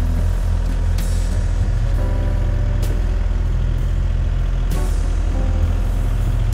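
Excavator's diesel engine running steadily, with three sharp metallic knocks about one, three and five seconds in.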